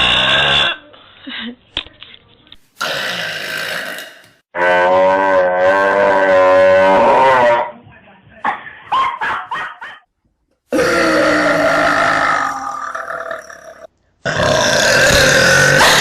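A string of loud, drawn-out burps by girls and women, one after another with abrupt breaks between them. The longest, about four seconds in, lasts about three seconds and wavers in pitch.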